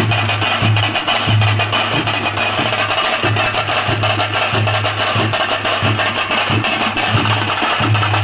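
Loud percussion-heavy procession music: fast, steady drumbeats over a low bass that pulses on and off.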